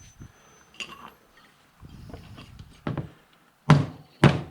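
Hammer blows driving a motorcycle tire's bead off the rim. A lighter knock comes about three seconds in, then two loud, short thuds less than a second apart near the end.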